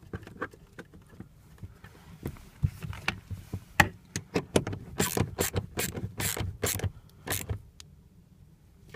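Socket ratchet clicking in short back-and-forth strokes as a 13 mm bolt is tightened, the clicks coming faster and louder past the middle and stopping near the end.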